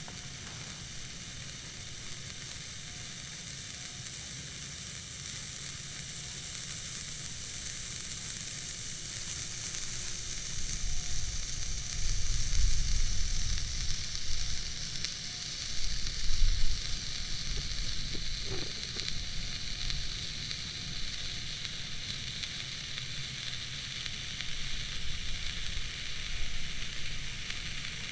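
Cutting Edge 'Have a Blast' firework stick burning with a steady sizzling hiss, with a few low rumbles in the middle, the loudest about sixteen seconds in.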